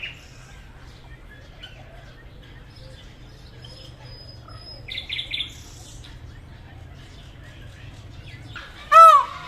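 A peacock gives one loud call near the end, its pitch rising and then falling. About five seconds in there is a brief harsh, pulsed call, over faint chirping in the background.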